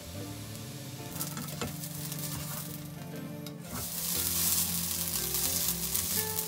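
Food frying in a pan: a steady sizzle that gets louder about four seconds in, with a couple of light clicks, over background music.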